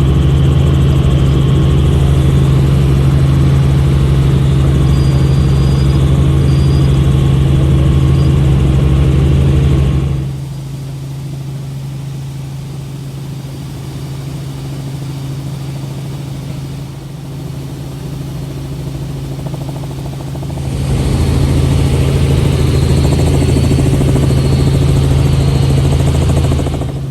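Helicopter engine and rotor noise: a loud, steady low drone with a strong hum. It drops suddenly to a quieter level about ten seconds in and comes back just as suddenly about twenty-one seconds in.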